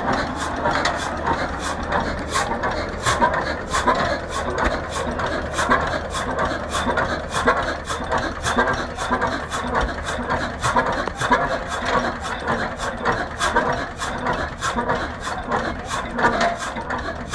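1925 Hein 18 hp single-cylinder hot-bulb marine engine running slowly, a steady rhythm of sharp exhaust beats at about three a second.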